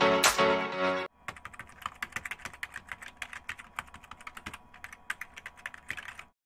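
Electronic music cuts off about a second in, then comes rapid computer-keyboard typing, a quick run of clicks lasting about five seconds, which stops abruptly.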